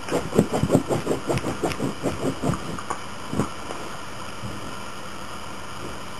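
Miniature schnauzer's claws scraping quickly at a fabric rug, the pre-sleep digging of a dog making its bed, several strokes a second. The scratching stops about two and a half seconds in, with one last scrape a second later, leaving a steady hiss.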